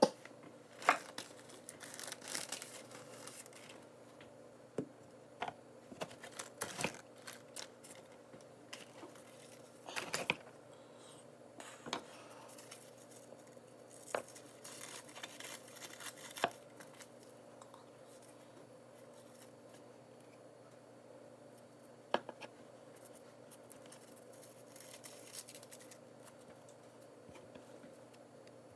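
Scissors snipping sheets of dried nori seaweed, with crisp cuts and crinkling of the brittle sheets. The snips come irregularly, thick in the first half and only a few sharp clicks later.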